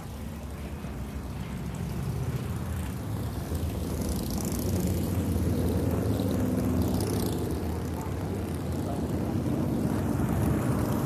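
Several cruiser motorcycles riding past one after another, their engines giving a low, steady rumble. It grows louder over the first five seconds or so as the bikes come by.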